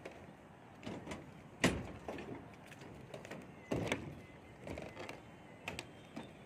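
Footsteps on roof-slab formwork and rebar mesh: irregular knocks, about one a second, two of them louder.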